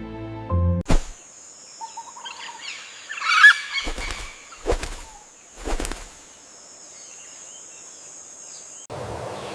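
A bird's harsh, scratchy call, followed by three dull thumps about a second apart.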